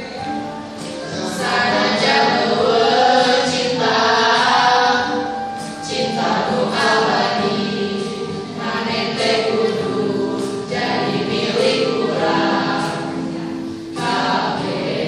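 A group of school students, girls and boys, singing a song together in Sundanese, in phrases with short breaks between them.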